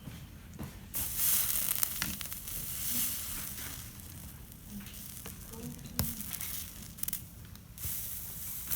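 A hot soldering iron melting solder along the copper-foiled seams of a stained glass panel, the flux sizzling in hissing bursts. The first burst starts about a second in and the last comes near the end.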